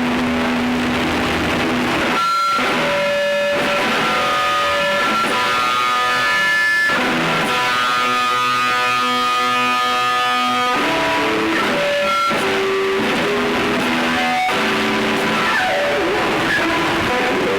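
Noise and drone music: a dense wall of distorted noise with sustained pitched tones held in chords that switch abruptly every few seconds.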